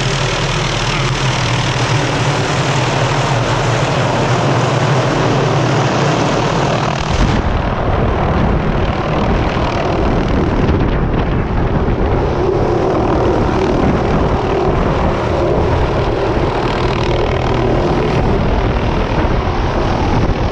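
Helicopter turbine and rotor running loud and steady. About seven seconds in the sound changes abruptly to a rougher rumble.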